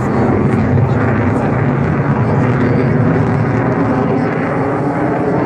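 Steady, loud rumble of a Eurofighter Typhoon (EF-2000) jet fighter's twin jet engines flying overhead.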